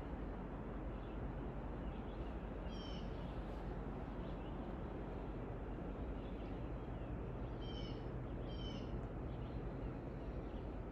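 Short bird calls over a steady background hiss: one call about three seconds in and two more close together near the end.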